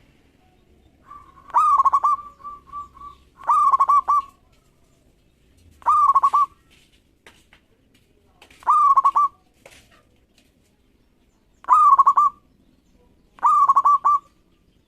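Zebra dove (perkutut) singing: six short, rolling cooing phrases a couple of seconds apart, each a quick run of coos on much the same pitch, the first followed by a few softer trailing coos.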